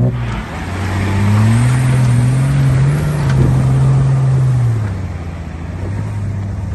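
Off-road 4x4's engine pulling hard under load: the revs climb, hold high for a few seconds, then ease back about five seconds in.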